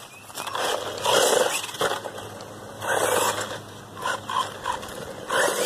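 Small 1/12-scale two-wheel-drive RC truck driving off over a gravelly dirt path in short spurts of throttle, its motor and tyres on the grit heard in several irregular noisy spells.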